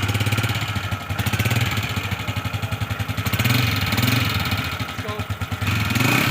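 Honda CG 125 single-cylinder engine running, revs rising and falling a couple of times, with its rockers (cam followers) making excessive noise.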